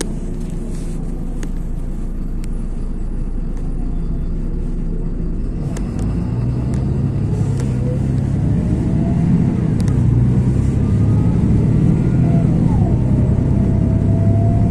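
LiAZ 6213.22 articulated city bus heard from inside the cabin, accelerating: the engine hum swells from about six seconds in. A whine rises in pitch with it, drops back once and climbs again.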